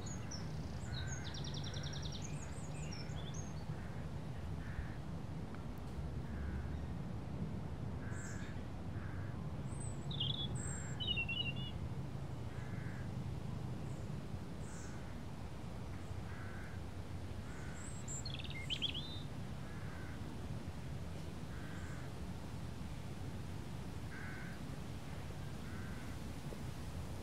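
Outdoor ambience of birds calling: a soft call repeating about once a second, with a few higher, quicker chirps now and then, over a low steady background rumble.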